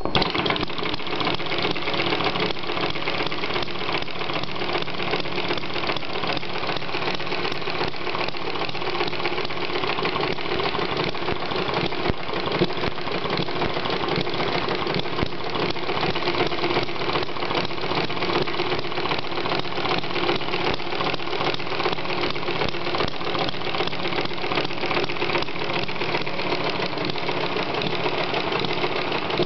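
Small model Atkinson engine running steadily, a fast, even mechanical clatter of its firing and moving parts.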